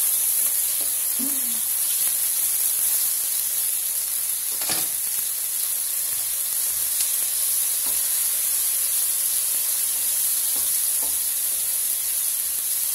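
Chicken and vegetables sizzling steadily as they sauté in a frying pan, stirred and turned with a utensil, with one sharp knock about five seconds in.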